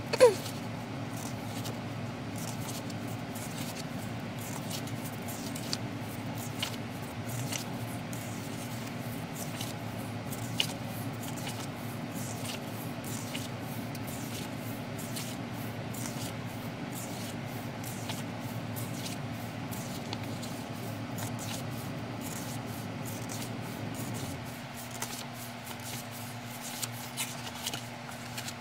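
Photobook pages being turned and handled by hand: soft paper rustles and flicks every second or so, with one sharper tick at the start, over a steady low background hum.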